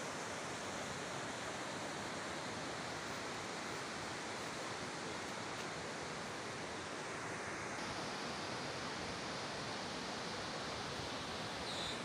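Steady rush of a mountain stream flowing over a rocky bed, an even hiss with no breaks.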